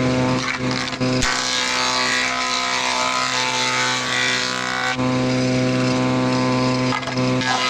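Woodworking planing machine running: a steady motor hum under the hiss of the cutter, the sound changing abruptly about a second in and again about five seconds in.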